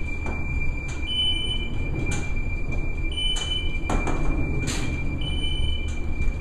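Fast freight elevator car descending in its shaft: a steady low rumble under a thin high whine, with a short beep repeating about every two seconds and a few brief whooshes.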